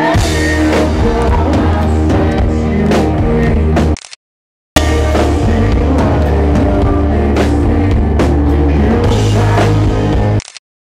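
Live rock band playing loudly, with drum kit, bass and guitar. The audio cuts out to silence for about half a second around four seconds in, and again near the end.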